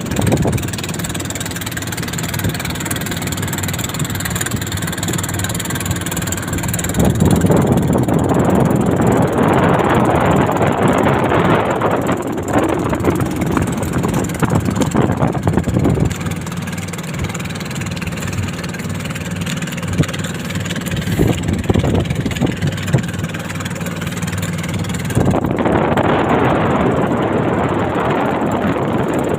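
A motor engine running steadily, with two louder, rougher stretches: one from about a quarter of the way in to the middle, and another near the end.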